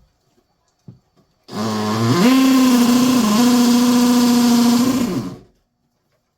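Electric drill spinning up to drill a hole: the motor whine rises in pitch, runs steadily for about three seconds with a brief dip under load, then winds down and stops.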